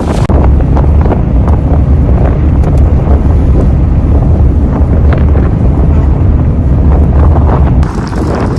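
Strong wind buffeting the microphone in a snowstorm: a loud, steady low rumble that eases slightly near the end.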